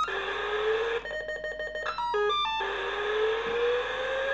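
Fisher-Price Alpha Probe toy spaceship's electronic sound effects: a hissing rocket-like rush with a slowly rising tone, broken about a second in by rapid electronic beeping and a quick run of stepped beeps, then the rising rush starts again.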